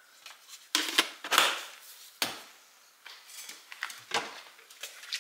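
Kitchen things being handled and set down on a countertop: about seven separate clicks and knocks, the loudest about one and a half seconds in.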